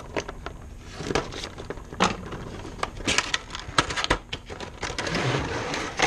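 A cardboard toy box being handled and opened, with scattered taps and clicks. In the last second and a half comes a rustling scrape as the plastic tray slides out of its cardboard sleeve.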